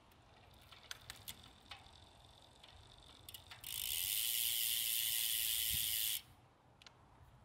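Bicycle drivetrain turned by hand on a stand: a few faint light clicks as the rear derailleur shifts the chain across the custom 10-speed cassette, then a steady high whir of the chain and spinning rear hub for a couple of seconds that stops suddenly.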